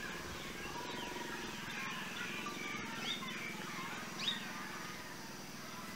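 Scattered short, high chirping animal calls, several with a quick falling glide, over a steady low hum.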